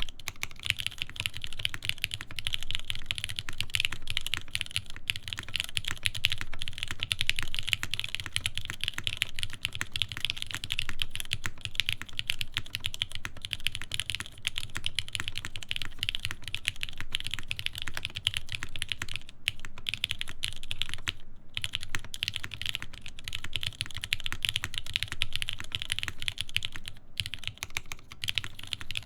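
Continuous typing on a TGR Jane v2 CE mechanical keyboard with lubed Cherry MX Black linear switches, a carbon fiber plate and GMK keycaps: a steady stream of key clacks, with a few brief pauses after about twenty seconds.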